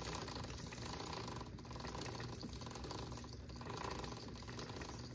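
Chain lube sprayed onto the inside of a Husqvarna TR650's drive chain as the rear wheel is turned on the stand, a steady hiss with a faint repeat about once a second.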